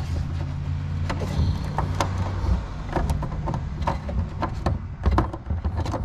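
Hand working inside a car's tail light access opening, with scattered clicks, knocks and scrapes of plastic trim, wire loom and the turn signal bulb socket being twisted loose, over a steady low hum.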